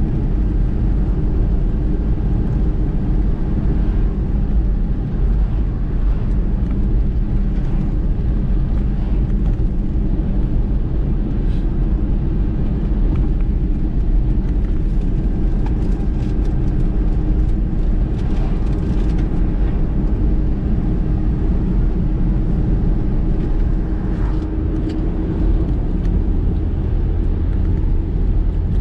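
A car driving at a steady pace: continuous low engine and road rumble, with a few faint clicks about halfway through.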